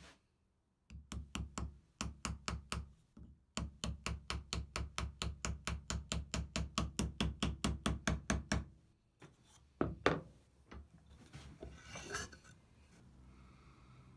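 Rapid, even, light hammer taps on an oak dovetail joint, about five a second, driving the joint together, with a short pause about three seconds in. A single louder knock follows about ten seconds in, then a brief rubbing noise of the wood being handled.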